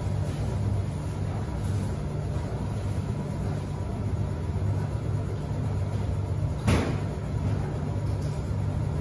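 Commercial front-loading washing machine in its final spin: a steady low hum from the motor and spinning drum. A single sharp knock comes about two-thirds of the way through.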